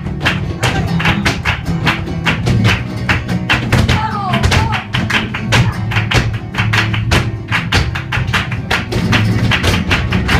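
Flamenco music with guitar and a short sung line about four seconds in, over many quick, sharp strikes of flamenco footwork (zapateado).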